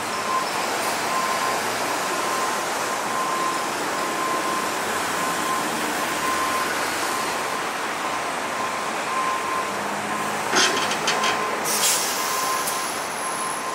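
A regular beep repeating over a steady rush of noise, with a short run of sharp clicks about ten and a half seconds in.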